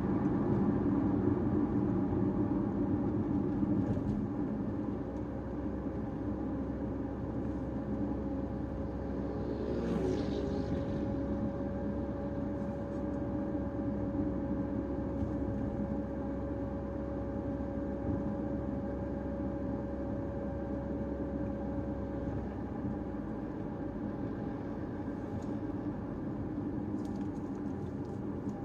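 A Caoa Chery Tiggo 5x being driven, with steady engine and road noise. A faint steady whine runs from about five seconds in to about twenty-two seconds, and there is a brief louder noise about ten seconds in.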